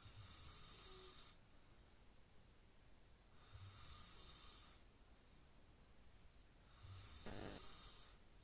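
A person snoring: three long, breathy snores about three and a half seconds apart, the last one louder.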